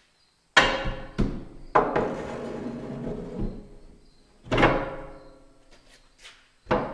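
Heavy metal-on-metal clanks on steel truck parts: three blows in quick succession, then two more spaced a few seconds apart, each ringing out briefly.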